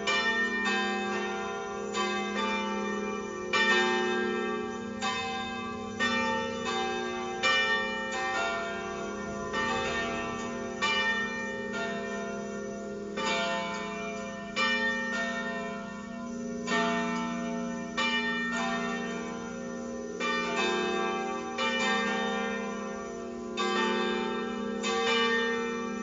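Church tower bells pealing, with a new stroke about every second and the tones of the bells overlapping and ringing on between strokes.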